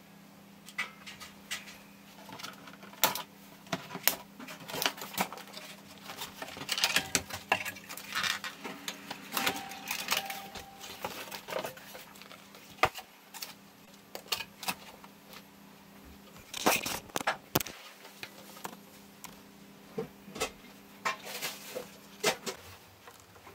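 Cardboard wheel covers being handled and pulled off mountain bike wheels: scattered rustling, scraping and sharp knocks and taps, over a low steady hum.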